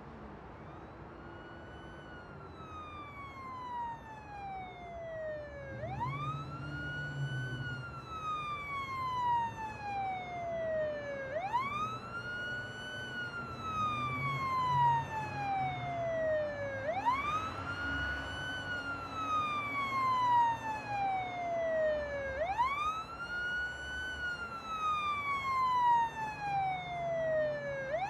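Emergency vehicle siren in a slow wail, each cycle rising quickly and then falling slowly, repeating about every five and a half seconds and growing louder.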